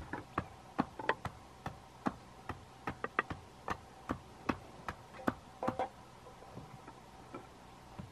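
Irregular sharp knocks and taps of green bamboo against bamboo, about two a second with a short ring, as a bamboo tube is worked by hand on a bamboo-slat table. They thin out after about six seconds.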